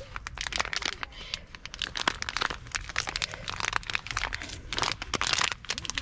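Crinkling and crackling of a plastic nut packet being squeezed, twisted and pulled at by hands, trying to tear open packaging that won't give.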